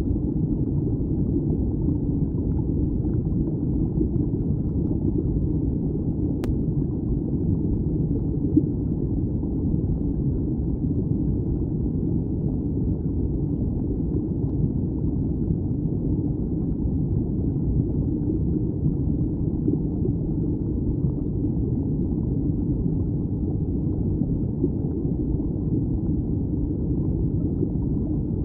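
Stream water flowing past an underwater camera housing: a steady, muffled low rumble with no high sounds, with one faint click about six seconds in.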